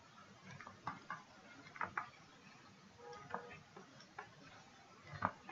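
Faint, irregular ticks and taps of a stylus writing on a tablet screen, about one every second or so.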